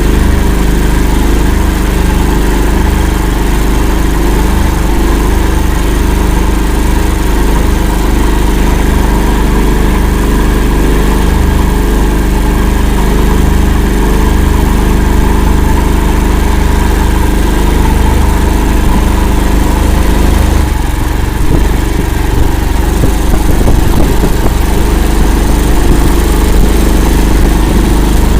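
Engine of an Akula all-terrain swamp vehicle running steadily under load. About three-quarters of the way through the note dips briefly, then runs less evenly.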